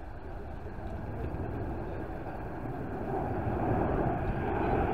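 Jet airliner, a Boeing 737-800 with CFM56 turbofans, on final approach, its engine rumble growing steadily louder as it comes in to land.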